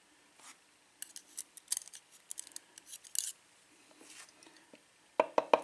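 Small metal lock pins and tweezers clicking and ticking against each other as the pins are handled: a quick run of light, high ticks in the middle, then a few sharper clicks near the end.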